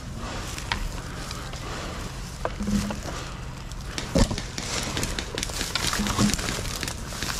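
Footsteps and body movement rustling through dead, dry grass and reeds, with a few sharp crackling snaps scattered through.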